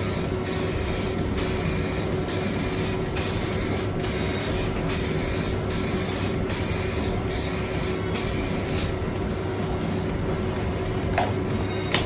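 High build primer being sprayed onto a car wing panel in short hissing bursts, roughly one a second, that stop about nine seconds in.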